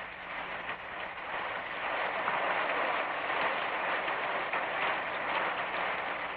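Steady rain, a hiss with no distinct drops that grows louder over the first two seconds and eases a little near the end.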